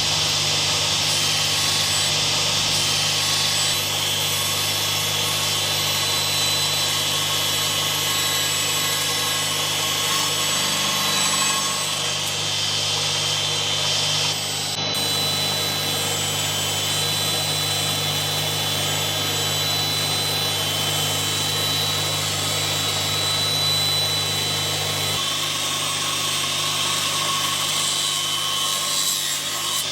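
A power tool's electric motor running steadily under load, a constant low hum with a hiss above it; the hum shifts slightly about 25 seconds in.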